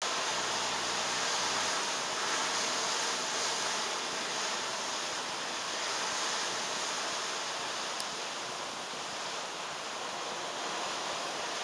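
Steady rushing of wind and sea, heard from the open deck of a cruise ship under way, with a single small click about eight seconds in.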